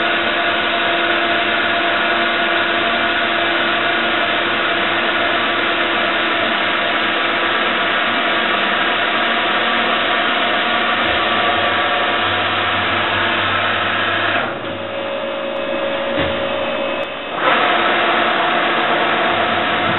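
Rambaudi Versamatic 500 CNC milling machine running under power, a steady mechanical whirr with several held tones as its head traverses over the table. For about three seconds near the end the sound shifts to a different, slightly quieter hum with a single low knock, then the whirr returns.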